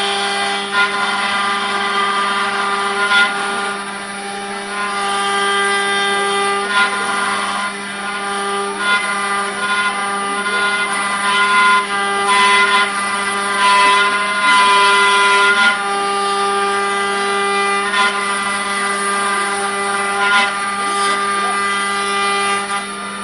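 4-axis CNC wood router with several spindles: a steady spindle whine with an even hum beneath, while the bit cuts into a square wooden blank. The cutting noise comes and goes, with short sharp scrapes as the bit bites into the wood.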